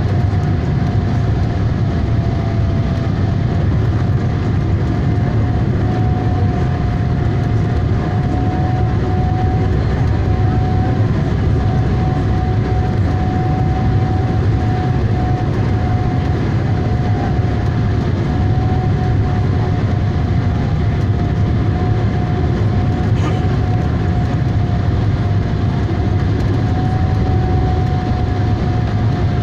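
Jet airliner cabin noise beside the wing-mounted engine on final approach: a steady engine and airflow rumble with a thin steady whine from the engine running at approach thrust.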